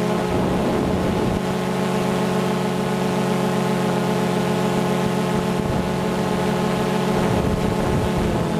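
DJI Phantom 2 quadcopter's motors and propellers humming steadily at a fixed pitch, picked up by the GoPro it carries, with wind buffeting the microphone now and then.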